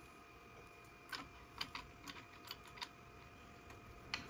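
Light, scattered metallic clicks of a spindle collet nut and router bit being handled during a bit change, about eight small ticks spread over a few seconds.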